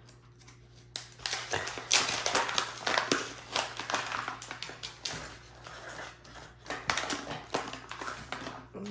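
Crinkling and rustling of a packaging pouch as it is opened and its small packaged tools are pulled out: a dense run of crackles and small clicks that starts about a second in.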